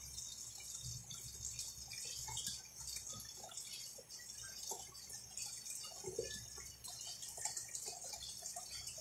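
Faint, irregular bubbling pops from a stew simmering in an electric cooker.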